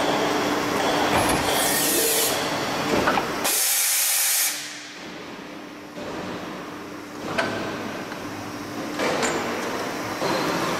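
Plastic injection moulding machine running a bucket mould through its cycle: a steady machine hum, two loud hisses of air about one and a half and three and a half seconds in, then quieter running broken by sharp clicks and knocks as the mould opens and closes.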